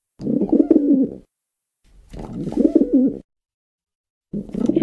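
Pigeons cooing: two rolling coos of about a second each with short silent pauses between them, and a third starting near the end.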